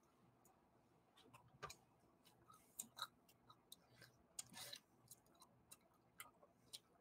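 Near silence with faint, scattered small clicks, about a dozen, and one slightly longer soft rustle a little past halfway.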